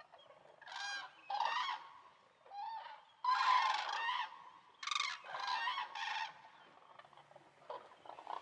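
A flock of cranes calling: a string of about seven honking, trumpeting calls, some overlapping, the loudest in the middle.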